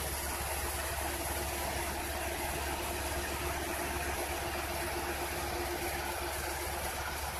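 Tata Hitachi wheeled excavator's diesel engine running steadily, an even low hum with no change in speed.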